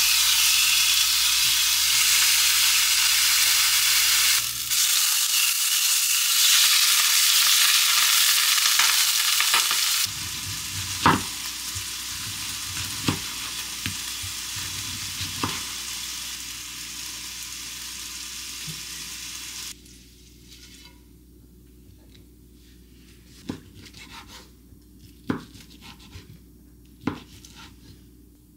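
Chicken breast sizzling loudly as it fries in olive oil in a nonstick pan. About ten seconds in, the sizzle drops to a quieter level and a kitchen knife knocks on a wooden cutting board a few times, slicing a tomato. Near the end the sizzle is gone and only a few separate knife cuts on the board remain, slicing the grilled chicken.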